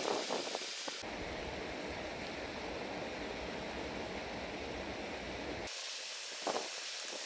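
Steady rushing outdoor noise with a low rumble. It starts abruptly about a second in and cuts off just as abruptly near the end, with a few faint small clicks before and after it.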